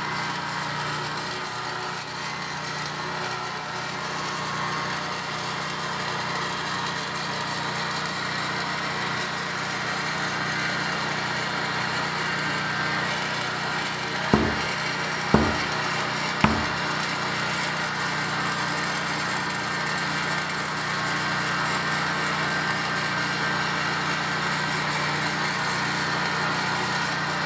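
A steady mechanical hum, with three sharp knocks about a second apart about halfway through.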